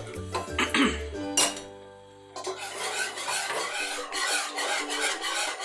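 Wire whisk scraping and rasping against the sides and bottom of a nonstick pot as it is stirred quickly through thick saffron béchamel sauce. The whisking drops out for a moment about two seconds in, then resumes. Background music plays under it.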